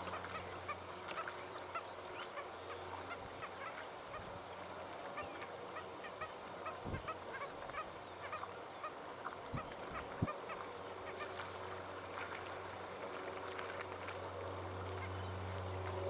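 A flock of banded stilts calling, many short call notes overlapping in a steady chatter.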